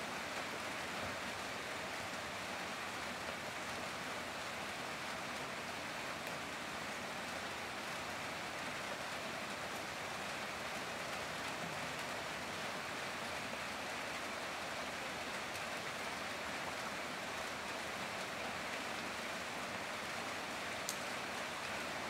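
Heavy rain falling steadily, an even hiss of drops with no let-up, and one brief sharp tick near the end.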